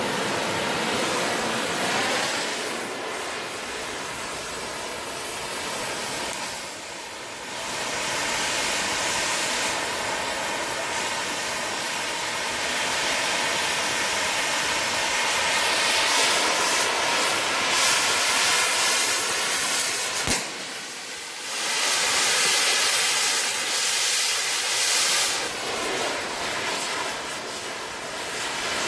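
Cutting torch hissing steadily as it cuts through the steel back panel of a safe. The hiss drops off briefly twice, about seven seconds in and about twenty seconds in, with a sharp click just before the second break.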